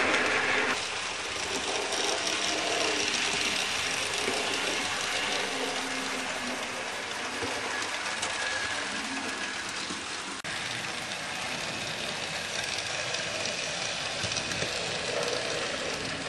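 HO scale model train running along the layout track: a steady mechanical whirr and a dense run of fine clicks from the motor and wheels on the rails, a little quieter after the first second.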